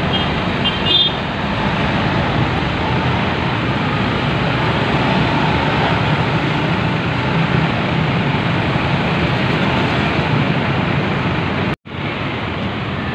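Heavy road traffic: buses, cars and motorcycles driving past with a steady engine and tyre rumble. The sound drops out for a moment near the end, then resumes.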